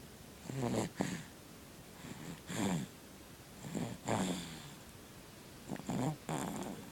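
A sleeping baby snoring, a rasping breath in and out about every one and a half seconds, four times.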